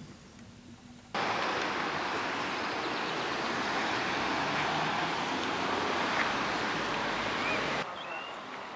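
Thunderstorm rain and wind: a loud, steady rushing hiss that starts suddenly about a second in and cuts off abruptly near the end.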